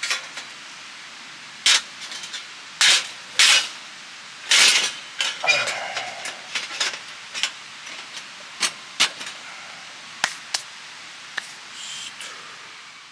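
Irregular sharp clicks, clinks and knocks of camping gear being handled, the loudest in the first five seconds, over the steady rush of a river.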